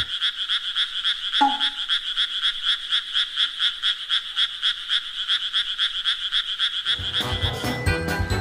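A fast, buzzy pulsing sound, about ten pulses a second, confined to a narrow upper band with the low end cut away, like a croaking sound effect laid over the clip. It stops about seven seconds in, and background music comes back near the end.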